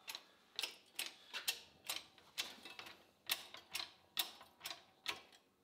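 A brass insert being press-fitted into a hole in a steel clamping bar by a pusher in the milling machine spindle: a run of quiet, sharp clicks, roughly three a second at an uneven pace.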